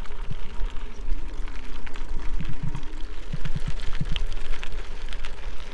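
Trek Checkpoint gravel bike tyres rolling over a gravel trail: an irregular crackle of small clicks and short thumps from the stones over a steady low rumble.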